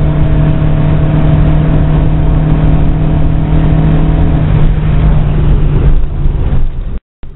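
Volkswagen Scirocco at high speed, heard from inside the cabin: a loud engine drone holding one steady pitch over a broad rushing noise. The engine tone fades over the last couple of seconds, then the sound cuts off abruptly.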